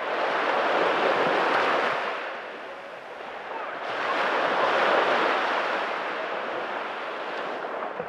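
Small waves washing up onto a sandy beach and running back, swelling twice: about a second in and again about four seconds in.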